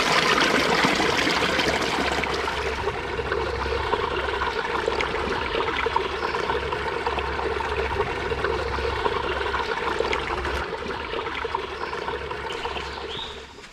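Water of a shallow spring-fed stream flowing and trickling over rock close by, steady, until it drops away just before the end.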